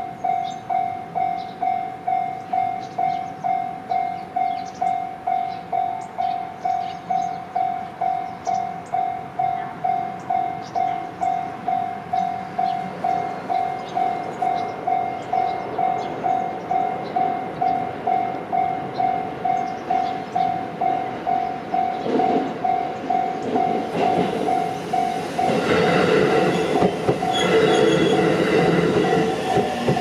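Japanese level-crossing warning bell ringing a steady repeating electronic ding, about one and a half a second. From about two-thirds of the way in, an approaching JR Central 313-series electric train's rumble and wheel clatter build up, growing loudest over the last few seconds as it runs through the crossing.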